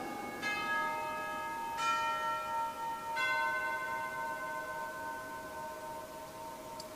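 Altar bells rung at the elevation of the consecrated host: three strikes about a second and a half apart, each ringing with several tones and dying away slowly.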